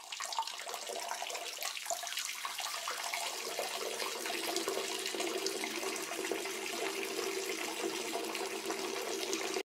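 A steady stream of running water, like a tap left running, that starts and cuts off abruptly as an edited-in sound effect.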